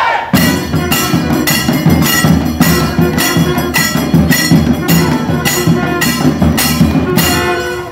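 South Indian temple music from a nadaswaram and thavil: the double-reed pipe holds long notes over a steady beat of drum strokes, about three a second. The drumming stops near the end while a pipe note carries on.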